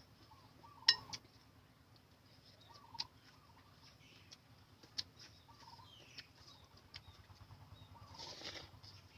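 Chickens clucking faintly, with a few sharp clicks, the loudest about a second in, and a short rustle near the end.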